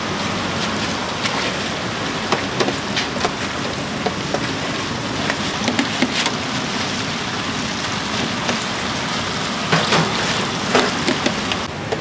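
Banana fritters deep-frying in a large stainless-steel fryer: a steady sizzle of bubbling oil, with scattered sharp clicks as a wire strainer is worked through the oil.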